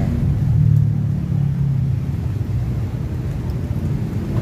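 A steady low rumble, strongest in the first second or two and easing a little after.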